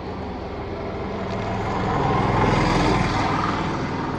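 A motor vehicle passing on the road, its engine and tyre noise growing louder to a peak about two and a half seconds in, then fading.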